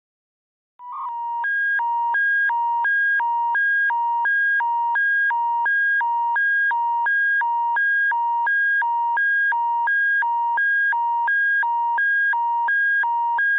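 Emergency alert attention signal: after a short beep about a second in, two electronic tones, one lower and one higher, alternate about every 0.4 seconds in a steady, loud warble. It is the attention tone that opens a Canadian public alert broadcast.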